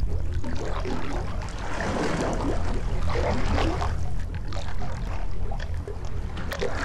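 Underwater-style sound effect of rushing, bubbling water over a steady low drone.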